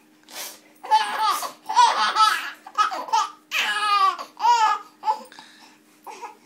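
Baby laughing while being tickled on the chest, a run of high-pitched laughs through the middle that trails off into a few short ones near the end.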